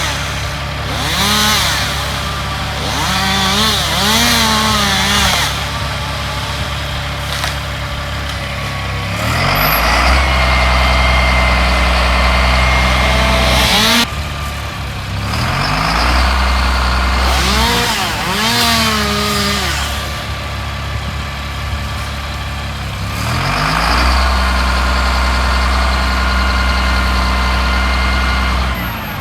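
Chainsaws being revved up and down in quick throttle blips during tree felling, alternating with a larger engine running steadily at high speed with a deep rumble. The sound breaks off abruptly a few times.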